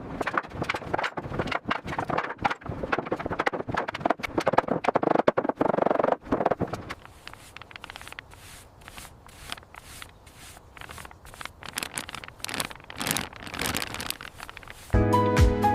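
A dense, irregular run of scraping and clicking noises, louder for the first seven seconds or so and fainter after. Music comes in near the end.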